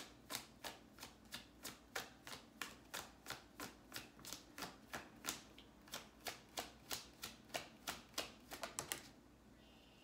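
A tarot deck being shuffled by hand, overhand: a steady run of soft card slaps, about three a second, as packets of cards drop from one hand onto the other. The slaps quicken briefly and stop about a second before the end.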